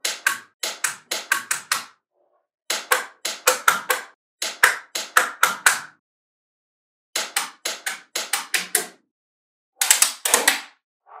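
Small magnetic balls clicking as they snap together and are pressed into place. The sharp clicks come several a second in quick runs, with short pauses between the runs.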